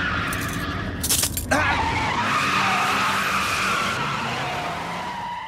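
Car tyres screeching with engine noise as a car pulls away hard, spinning its wheels. A short harsh burst of noise comes about a second in.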